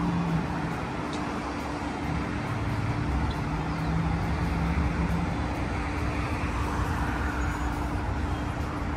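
Road traffic on a wide city street: cars and other vehicles running past in a continuous wash of engine and tyre noise, with a steady low hum underneath.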